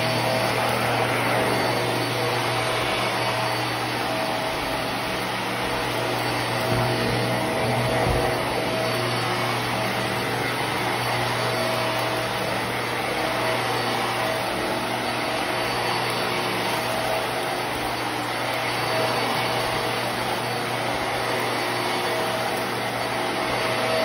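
Hart Pet Grade upright vacuum cleaner running steadily while it is pushed over carpet: an even motor hum with a faint steady whine.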